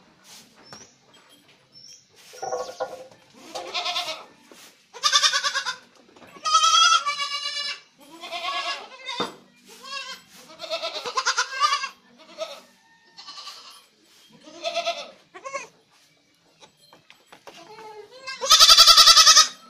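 Several Osmanabadi goats bleating in turn, about a dozen quavering calls at different pitches, one every second or two, with the loudest and longest call near the end.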